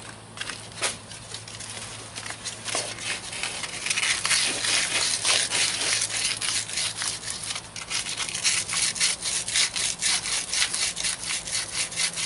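Quick back-and-forth rubbing of sandpaper on a metal battery cable lug, scrubbing the contact surface bright for a clean connection. A few scattered strokes at first, then a fast, even run of strokes from about four seconds in, with a short break near eight seconds.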